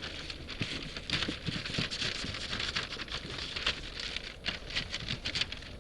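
Honeycomb and wax being scraped out of a wall cavity with a hand tool: a dense run of quick, irregular scratches.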